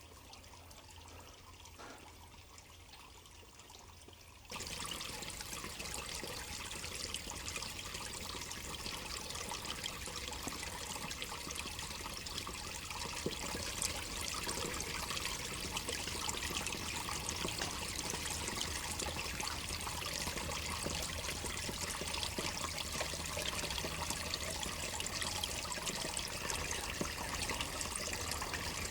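Faint quiet, then about four seconds in a steady sound of running water, like a trickling stream, comes in suddenly and continues evenly.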